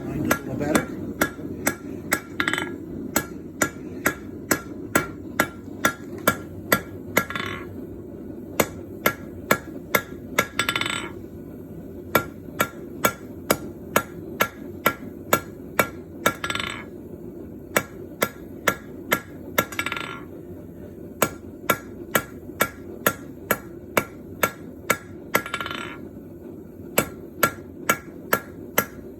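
Blacksmith's hand hammer striking bronze stock on an anvil, sharp ringing blows about two a second in runs, with short pauses between the runs. A steady low hum runs underneath.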